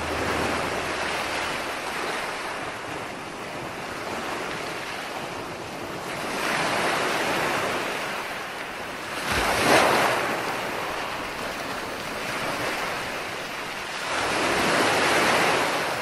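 Sea waves washing onto the shore, a steady rush with surges about six, ten and fourteen seconds in, the one near ten seconds loudest.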